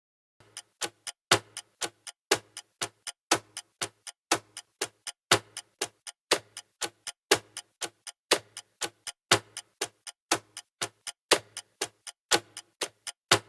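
Clock-style countdown timer ticking, about four ticks a second with a louder tick once each second.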